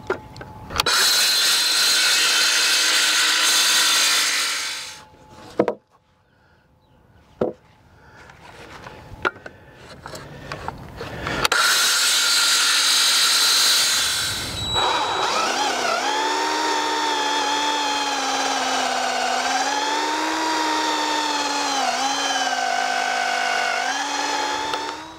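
Circular saw cutting through a pressure-treated 4x4 post in two passes, the first about four seconds long and the second about three, with a few knocks in between. Then a cordless drill runs under load for about nine seconds, its motor pitch wavering and dipping.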